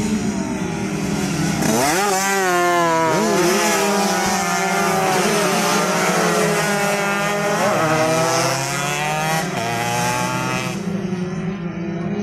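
A pack of two-stroke underbone race motorcycles, Yamaha F1ZRs bored out to 130 cc, passes at racing revs. Several engine notes rise and fall as the riders accelerate out of the corner, starting about two seconds in and dying away near the end. A steady low hum sits underneath throughout.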